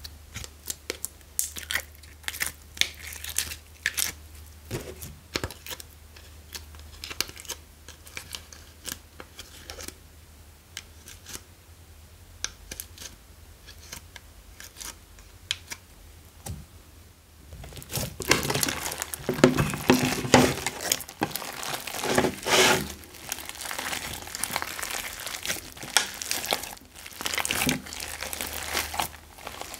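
Slime being squished, pressed and stretched by hand, giving sticky crackles, clicks and pops. Sparse at first, the crackling turns dense and louder about two-thirds of the way in as a large glittery lump is kneaded and folded. A faint steady low hum lies underneath.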